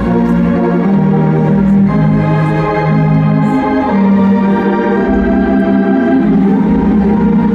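Wurlitzer theatre pipe organ playing held full chords, the bass moving to a new note every second or two.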